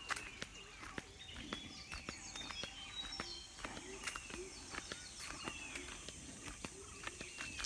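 A morning chorus of several songbirds chirping and calling over one another, with frequent short sharp clicks and a steady faint high hiss behind them.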